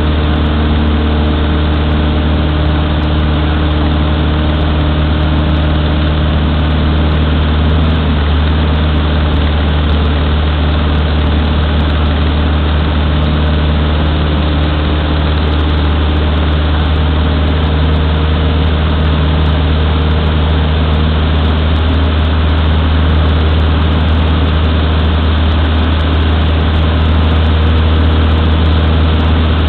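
Cessna 152's four-cylinder Lycoming engine and propeller droning steadily under power in flight, heard inside the cabin.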